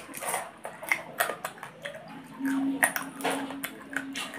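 Cooked blue swimming crab shell being bitten, cracked and picked apart by hand, with a scatter of sharp cracks and clicks and eating sounds. A steady low hum comes in about halfway through.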